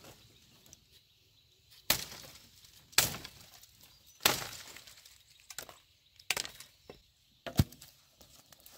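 Long-handled billhook chopping into green saplings: about five sharp strikes roughly a second or so apart, with leafy branches rustling and cracking between them and a heavier thud near the end.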